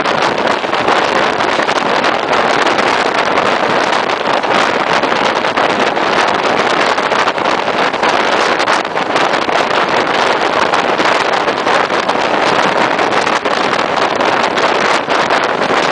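Steady rushing noise of a moving passenger train heard from an open carriage window, with wind buffeting the microphone.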